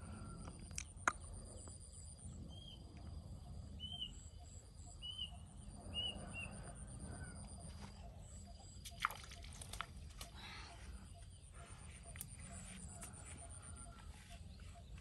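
Quiet outdoor ambience: a bird calling in a few short repeated chirps, a steady high insect-like buzz, and a handful of sharp clicks, the loudest about a second in and near nine seconds.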